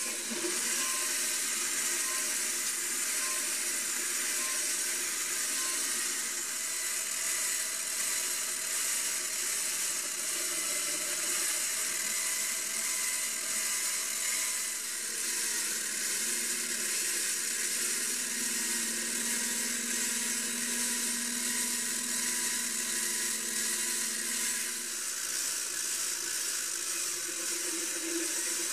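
Small benchtop metal lathe running with a steady whir while a workpiece in its chuck is turned and then drilled from a drill chuck in the tailstock.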